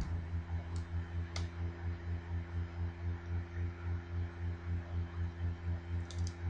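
A steady low electrical hum that pulses about four times a second, with a few faint clicks near the start and near the end as small screws are worked out of a netbook's screen with a small Phillips screwdriver.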